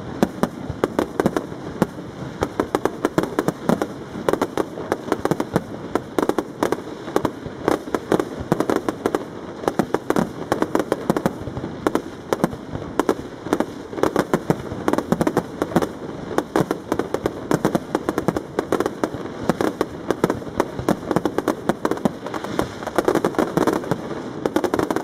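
Castillo aerial fireworks display: shells bursting in a dense, unbroken run of bangs and crackles, many a second, with no pause.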